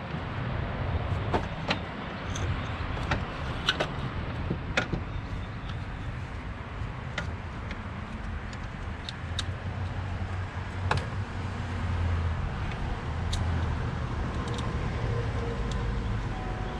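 Scattered sharp clicks and taps of hand tools on car parts, over a steady low rumble.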